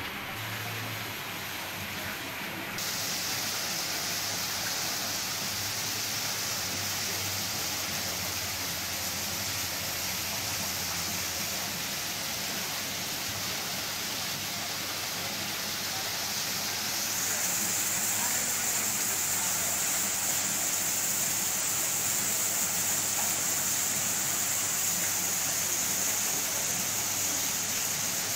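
Steady rush and hiss of water splashing into a koi pond, growing louder about three seconds in and again a little past halfway.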